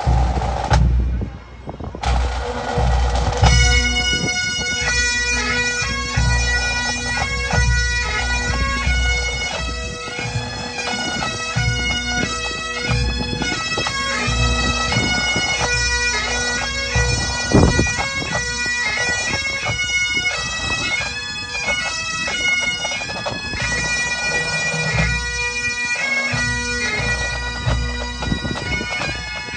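Pipe band starting its set: a burst of drumming opens, then the Great Highland bagpipes strike in with their steady drones, and the chanters take up a tune about three seconds in. Snare and bass drums play along beneath the pipes.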